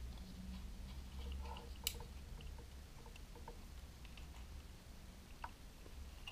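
Handling noise from a plastic cordless LED work light being picked up and turned over: faint taps and rubbing with small clicks, one sharp click about two seconds in and another near the end, over a low steady background hum.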